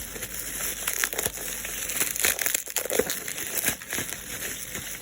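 Plastic packaging crinkling and rustling as it is handled, with many small crackles and clicks.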